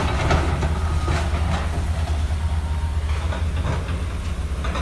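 Heavy demolition machinery running with a steady low rumble, with irregular knocks and clanks.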